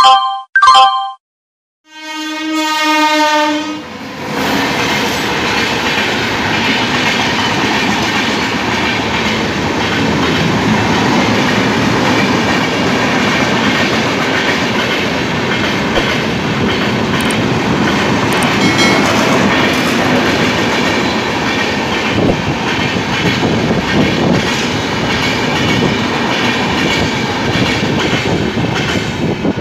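A short intro chime, then a train horn sounding one steady note for about a second and a half. After that comes the loud, steady rush and rattle of a passenger express train passing close by at high speed.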